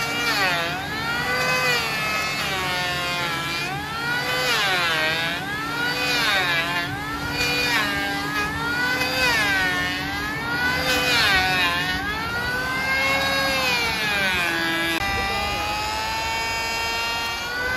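A wood-processing machine's motor or saw whining under load, its pitch dipping and climbing back again every second or two. About three-quarters of the way through, the pitch steadies.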